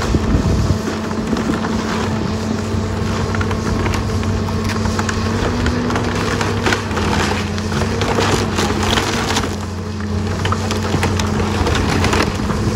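A John Deere 270C excavator's diesel engine running steadily under load, its pitch shifting slightly as the hydraulics work. Over it, wood cracks and crunches as the grapple tears into the barn's boards and timbers, most around the middle and again near the end.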